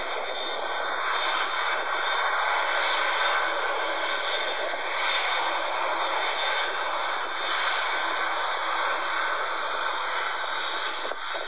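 Jet engines of a Boeing 787 Dreamliner at taxi power, heard as a steady, even hiss with little deep rumble.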